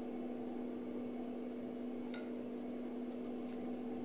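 Steady electrical hum, a single low tone with a fainter one an octave above, unchanging throughout. It is broken only by a faint light tick about halfway through and a few fainter ticks just after.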